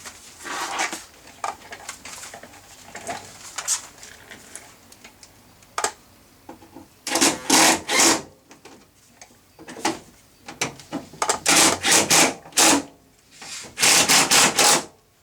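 Socket ratchet tightening the bolts that hold a door speaker, in clusters of quick rasping strokes with quieter scraping between.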